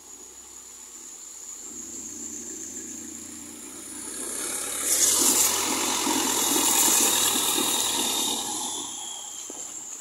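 Thai long-tail boat passing close by: its engine, mounted on the stern pivot with a long propeller shaft, and the rush of its wake grow louder over the first five seconds. They are loudest as the boat goes past and fade near the end as it moves away.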